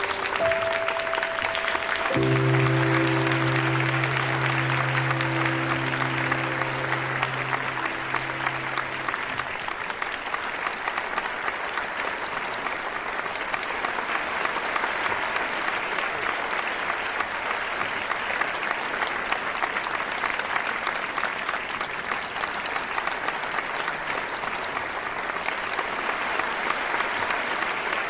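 Audience applauding steadily. Under it, the last held chord of music dies away about nine seconds in.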